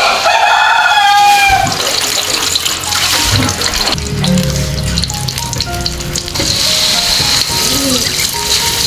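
Water running from a tap into a sink, with background music.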